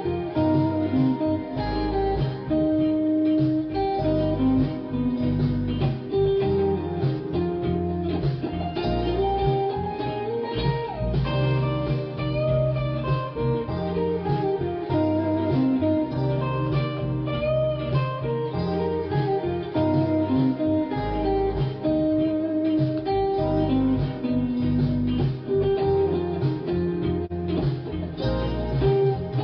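Background music led by guitar, a bluesy plucked and strummed instrumental with a steady bass.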